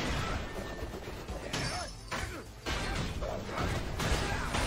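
Anime battle sound effects: crashing impacts and swooshing blows, with a sudden loud crash about two and a half seconds in after a brief lull.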